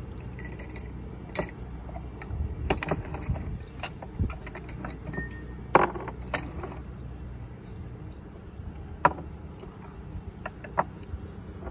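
Small metal, ceramic and glass coffee tools clinking and knocking as a barista handles cups and espresso gear at a coffee cart, with a sharp knock about six seconds in and another near nine seconds, over a steady low rumble.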